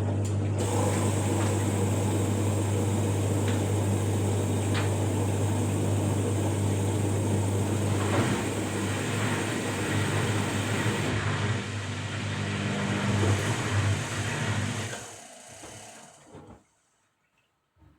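Washing machine running with a steady motor hum and churning, changing about halfway through, then winding down and stopping near the end.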